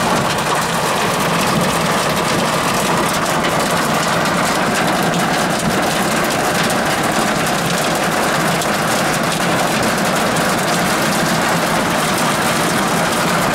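Steady vehicle engine and road noise heard from inside the cab, with rain on the glass.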